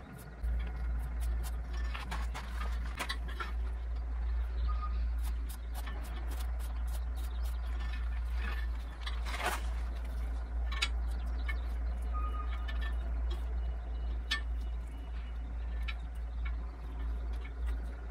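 Scattered small clicks and taps of a knife and gloved hands working the hide of a hung masked palm civet as it is skinned, over a steady low rumble.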